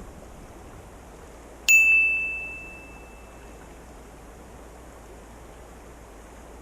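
A single bright bell-like ding about two seconds in, ringing on a steady high tone and fading away over a second or two, over the steady rush of creek water.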